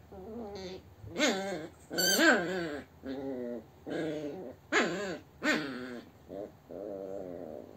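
Yorkshire terrier growling and whining in a run of short, bending calls, loudest about two seconds in.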